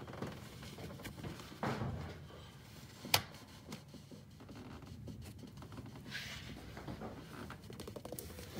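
Scattered metal clicks and clinks of a 12 mm offset ratcheting wrench being fitted onto a T60 Torx socket on the oil filter adapter bolt, with one sharp click about three seconds in.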